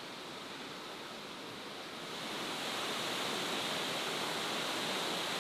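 Steady rushing water, an even hiss that grows a little louder about two seconds in.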